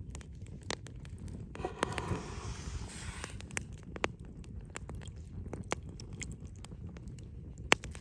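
A pink grapefruit half squeezed by hand over a bowl of barbecue sauce: the pulp squelches and juice streams into the sauce for a second or so, then falls in small scattered drips, one sharper near the end, over a low steady rumble.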